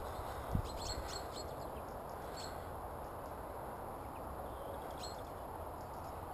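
Outdoor ambience: a steady background rumble, with scattered short, high bird chirps mostly in the first half and a single soft thump about half a second in.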